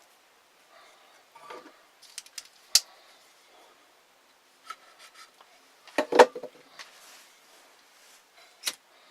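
Small clicks, taps and rustles of cord and wooden trap parts being handled on a table. There is a sharp click just under three seconds in, a louder cluster of knocks about six seconds in, and another click near the end.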